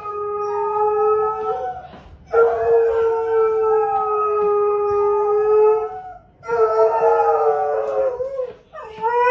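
Borzoi howling in long held notes: three long howls with short breaks about 2 and 6 seconds in, and a howl that rises in pitch near the end.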